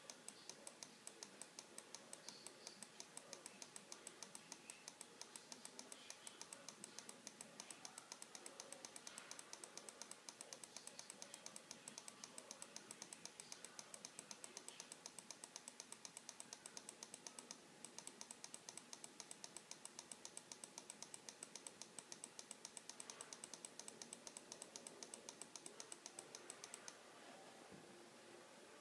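Faint, rapid, evenly spaced ticking, several clicks a second, which stops shortly before the end.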